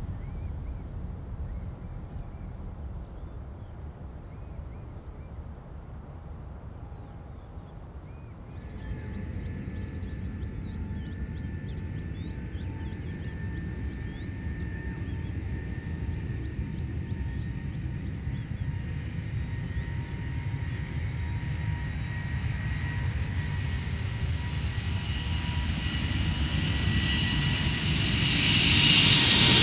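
A Boeing 787-9's twin Rolls-Royce Trent 1000 turbofans at takeoff power on the runway: a steady rumble with a high steady whine, growing louder as the jet rolls closer and loudest near the end. Before it, for about the first eight seconds, there is a fainter fading rumble from a twin-engined narrow-body jet climbing away.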